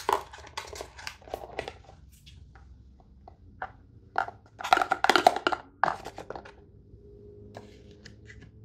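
Small plastic containers and packaging being handled: scattered sharp clicks and knocks, then a busier stretch of clattering and rustling about five seconds in.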